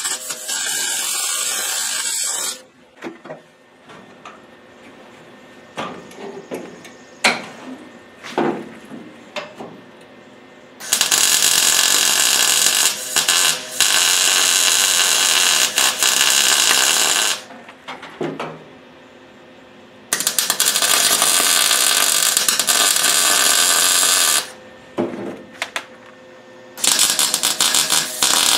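MIG welder's arc sizzling in four bursts of welding on the Camaro's sheet-metal rocker seam: a short one at the start, a long run of about six seconds near the middle, another of about four seconds, and a fresh one starting near the end. The quieter gaps between bursts hold a few light clicks.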